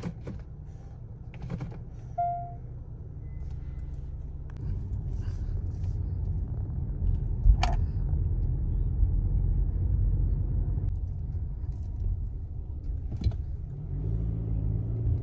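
A car being driven, heard from inside the cabin: a steady low engine and road rumble that grows louder from about four seconds in, with a few faint clicks.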